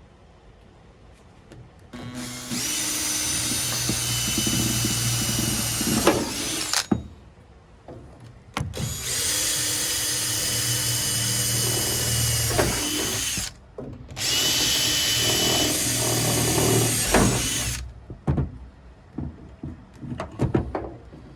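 Power drill making holes for a swing case toolbox, running in three long steady bursts of about four to five seconds each with short pauses between. Some knocks and clicks follow near the end.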